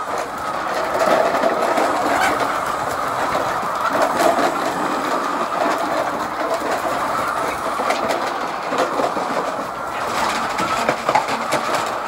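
Steady, dense din of a large flock of hens clucking and calling all at once, with scattered sharp clicks and rustles that come more often near the end.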